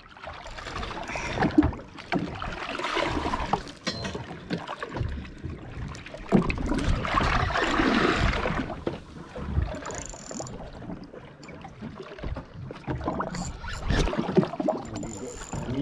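Sea water washing and sloshing against a fishing boat's hull in swells, with wind on the microphone, and a single sharp knock near the end.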